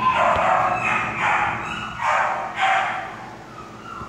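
A dog barking, four loud barks about half a second to a second apart.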